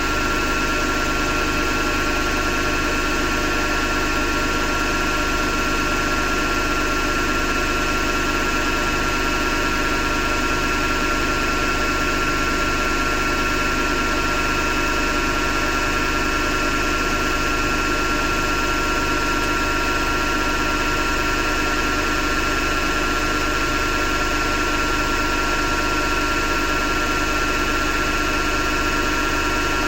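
Hotpoint Ariston FMD963 washing machine running with a steady grinding noise and a constant high tone, unchanged throughout. The owner suspects the grinding comes from the motor rather than the drum.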